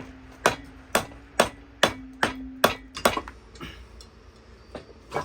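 Hammer blows on metal, about eight sharp strikes at roughly two a second with a ringing tone under them, then a few lighter, scattered knocks.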